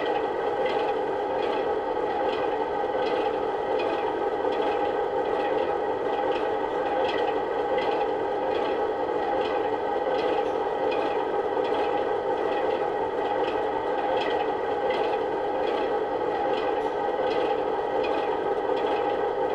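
A steady mechanical running sound, a whine made of several held tones, with a short tick repeating about twice a second.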